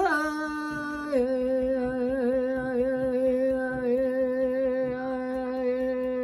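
A woman humming one long wordless note, stepping down slightly in pitch about a second in and then held with a slight waver.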